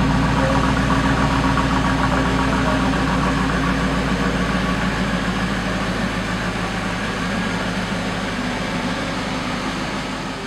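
Ford SVT F-150 Lightning's supercharged 5.4-litre V8 idling steadily, fading out near the end.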